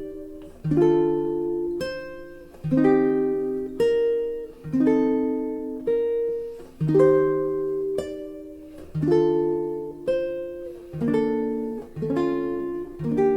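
Guitar music: slow picked chords, a new chord about every two seconds, each left to ring out and fade.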